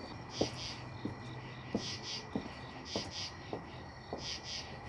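Crickets chirping in short double pulses, with a light, evenly paced tap about every two-thirds of a second beneath them.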